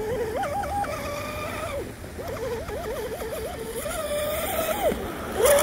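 SSS 2960 3000kV brushless motor of an electric RC speedboat whining out on the water, its pitch rising and falling as the throttle is worked, with a quick wavering run about two seconds in.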